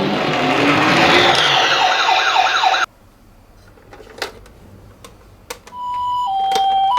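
Toy ambulance's electronic siren: a fast rising-and-falling yelp over a loud rushing noise, cutting off abruptly about three seconds in. After a few faint clicks, the two-tone Japanese ambulance siren starts near the end, alternating between a high and a low note.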